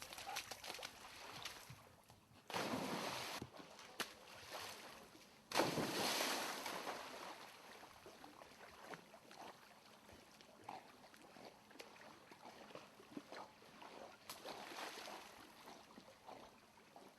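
Splashing water as a dog goes into and swims through it: a burst of splashing about two and a half seconds in, then a sudden loud splash about five and a half seconds in that dies away over a couple of seconds, followed by quieter lapping and dripping.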